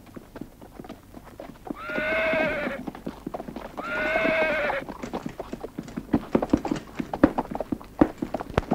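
Horses' hooves clopping at a walk. Two whinnies of about a second each come around two and four seconds in, and they are the loudest sounds.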